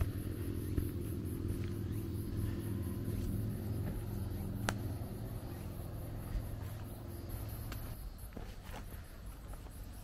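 A vehicle engine's steady low rumble that fades away near the end, with insects chirping.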